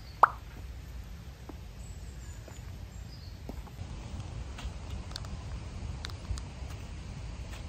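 Outdoor ambience: a few faint, high bird chirps over a low steady rumble, with one sharp short knock about a quarter second in and a few light clicks and rustles later.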